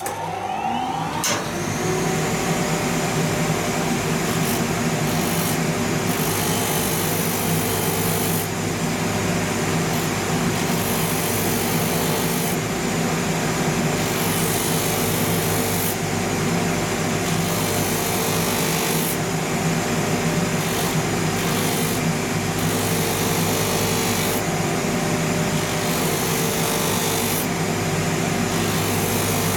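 A shoe-finishing machine is switched on: its motor spins up with a rising whine over the first second or so, then runs steadily with a hum. A leather outsole is ground against its rotary sandpaper wheel, a rasping scrape that swells and fades as the sole is pressed on and moved, sanding off the leather's grain surface.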